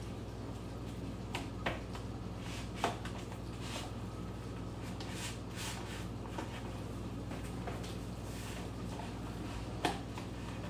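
A spatula stirring ground beef with onion, tomato paste and water in a bowl: soft scraping with a few light clicks against the bowl, over a steady low hum.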